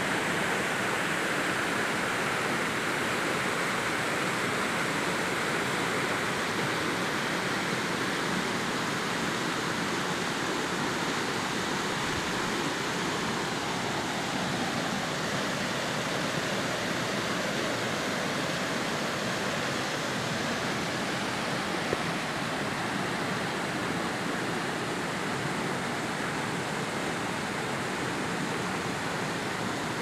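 Rain-fed waterfall pouring off a tall rock ledge: a steady rush of water splashing onto the rocks and pool below.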